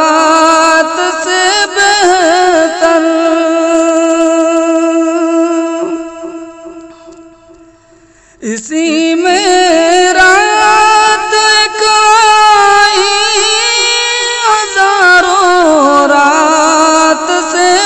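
A single voice singing a naat unaccompanied, drawing out long ornamented notes. One held note fades away, and the next line begins about eight and a half seconds in.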